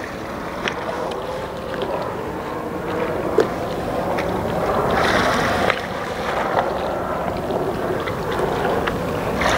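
Steady rush of wind and lapping water around a small boat, swelling louder for about a second midway, with a few faint ticks.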